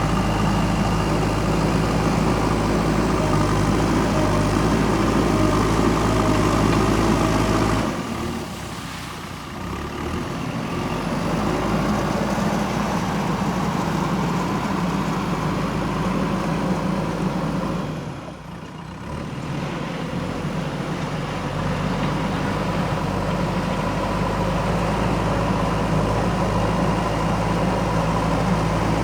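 Diesel engine of a JCB backhoe loader running steadily as the machine works. The sound drops away briefly twice, about eight and eighteen seconds in.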